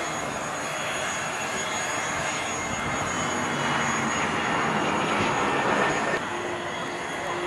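Business jet's engines at takeoff power as it lifts off and climbs away: a steady jet rush that swells about five seconds in, then drops abruptly about six seconds in.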